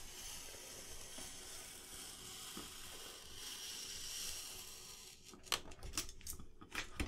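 Snap-off utility knife blade drawn steadily through a sheet of adhesive vinyl, a faint continuous hiss. About five seconds in it gives way to short crackles as the cut vinyl is lifted and crinkles.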